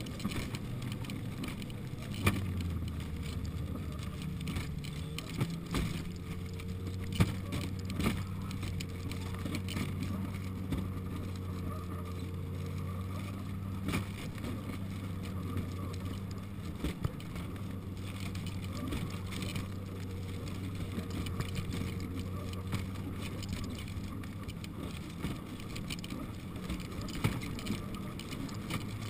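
Snowmobile engine running steadily at cruising speed, heard from the cargo sled it is towing, with the sled's wooden box rattling and knocking now and then as it bumps over the snow.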